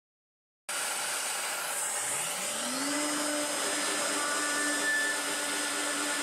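CNC milling machine spindle spinning up, its whine rising in pitch for about a second and then holding steady, over a steady rushing machine noise that starts abruptly.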